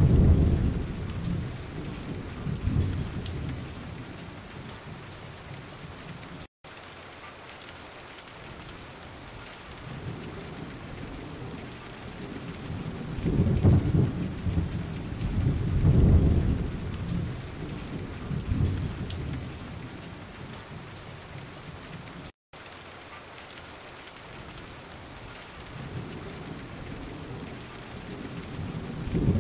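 Steady hiss of heavy rain and a swollen, fast-flowing river, broken by loud low rumbling surges at the start, around the middle and near the end. The sound cuts out for an instant twice.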